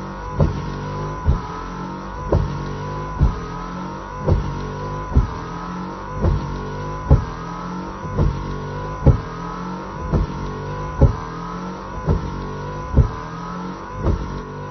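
Nissan Note rear windscreen wiper running, heard from inside the car: a sharp knock about once a second as the blade sweeps, over a steady hum.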